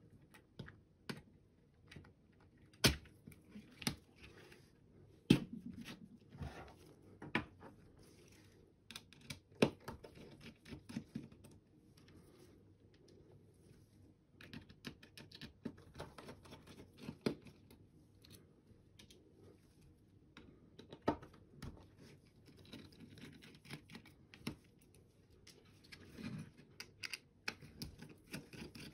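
Plastic parts of a SteelSeries Sensei 310 gaming mouse clicking, tapping and rattling as gloved hands take it apart and work its circuit board out of the shell. Irregular sharp clicks with softer handling between, a few loud clicks about 3, 5 and 10 seconds in.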